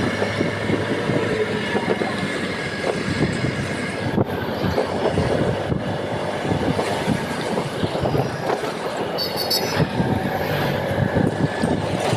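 Wind buffeting the microphone and road noise from riding on a scooter through traffic, a steady rumble throughout. A brief high trill sounds about nine seconds in.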